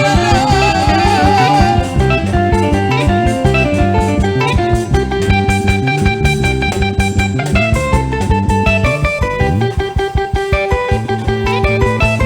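Live praise-worship band music: a guitar plays quick melodic lines over bass and a steady drum beat.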